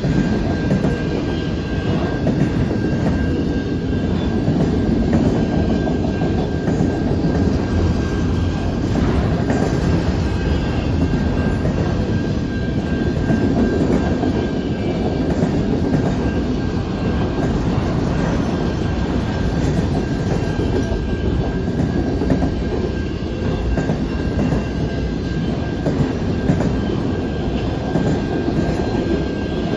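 Autorack freight cars rolling slowly past on jointed track: a steady rumble of steel wheels on rail, with a thin, steady high-pitched tone running above it.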